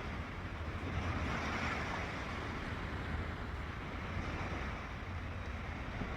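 Sea waves washing onto the shore, one swelling up about a second and a half in, over a steady low rumble.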